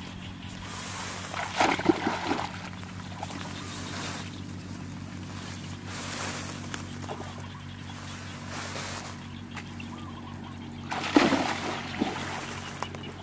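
Water sloshing and splashing as a woven basket fish trap is worked through shallow pond water, with two louder splashes, one about a second and a half in and the loudest about eleven seconds in.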